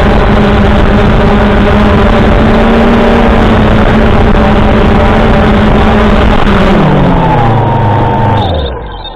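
3DR Solo quadcopter's motors and propellers buzzing loudly and steadily, picked up by the camera on the drone itself. About six and a half seconds in the pitch falls as the motors slow, and they wind down and stop as the drone comes down in the grass.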